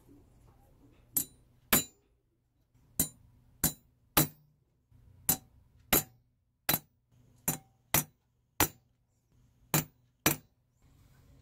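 A hammer striking a small steel punch into a sterling silver strip on a steel bench block, stamping a texture: thirteen sharp metallic clinks, mostly in pairs about half a second apart.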